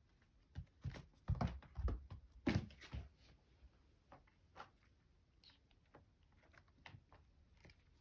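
A kitten at play: a quick run of soft knocks and rustles over a couple of seconds, then a few scattered light taps.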